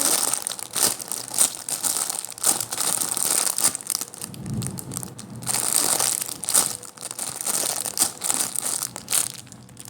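Continuous crinkling and crushing from a unicorn squishy toy being handled and squeezed, a dense run of crackles.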